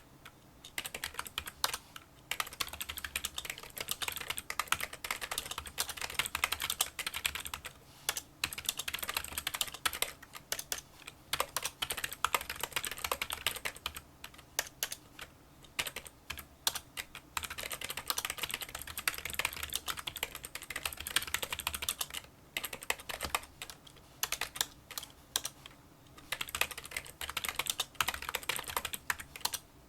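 Fast touch-typing on a Kinesis Freestyle Solo split keyboard with membrane key switches: a dense run of small clicking keystrokes, quieter than a typical membrane keyboard, broken by brief pauses every few seconds.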